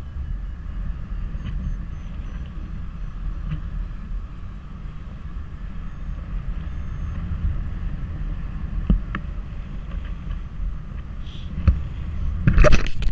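Wind rushing over the microphone of a paraglider pilot's camera in flight, a steady low buffeting, with a few sharp knocks and rustles near the end.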